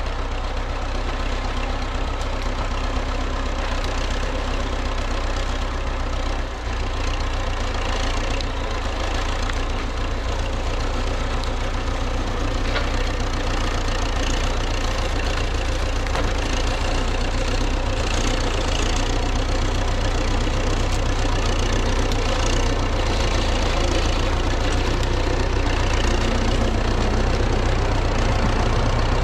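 MTZ-82 tractor's diesel engine running steadily at a constant pace throughout.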